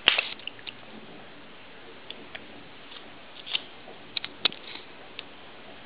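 A toddler's wet mouth smacks and small clicks while eating an ice cream cone: scattered and irregular, the sharpest right at the start and a little cluster a few seconds in.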